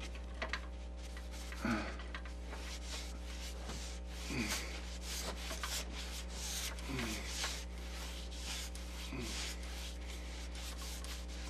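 Paintbrush working acrylic paint onto a canvas: a run of short brush strokes rubbing across the surface, over a steady low hum.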